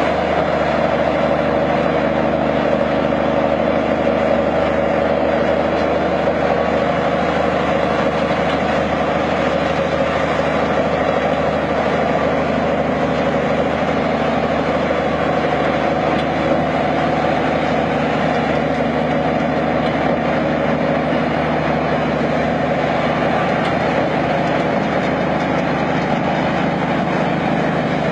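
Old heavy engine running steadily at an even speed, with a constant low hum throughout.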